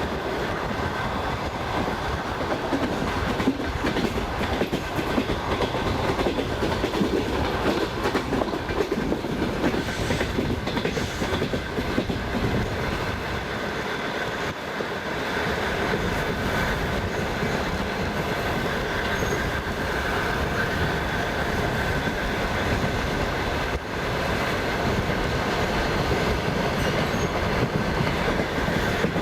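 Passenger train carriage wheels rolling over the rails at speed: a steady rumble with rapid clickety-clack of the wheels over rail joints and a thin steady whine from the wheels.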